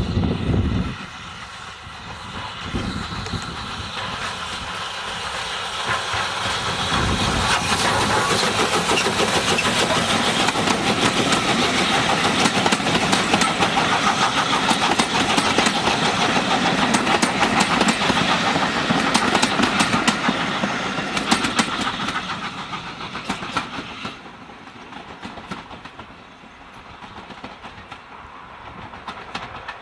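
Southern Railway M7 class 0-4-4 tank steam locomotive and its train of coaches passing close by: the sound builds as the train approaches, stays loud while the coaches roll past with a run of sharp clicks from the wheels over the rail joints, then fades as the train draws away. A brief low rumble comes at the very start.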